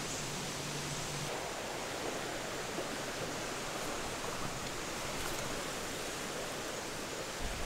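Steady, even outdoor background noise with no distinct events, with a faint low hum in about the first second.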